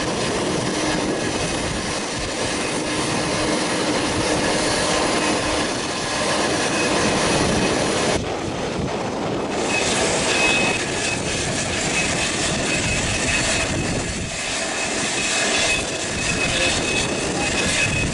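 Jet airliner noise: a steady rushing with a thin high whine that comes in about ten seconds in.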